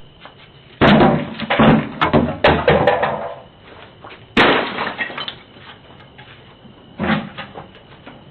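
A rapid run of loud bangs and crashes in the first three seconds, then a single heavy bang about four seconds in and another about seven seconds in.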